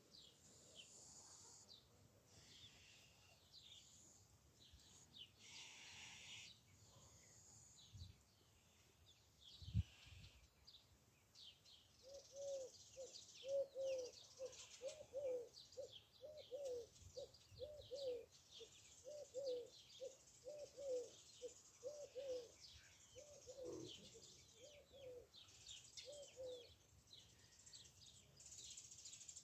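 Small birds chirping. From about twelve seconds in until near the end, a bird gives a low cooing call, repeated as a long series of short notes. There is a single thump just before ten seconds.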